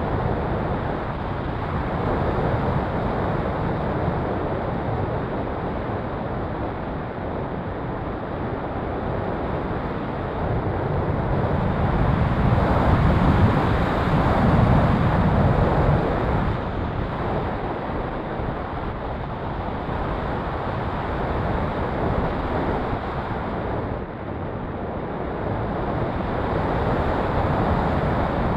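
Wind noise from airflow rushing over an action camera carried on a radio-controlled ASW28 glider in flight: a steady rush that swells a little louder about halfway through.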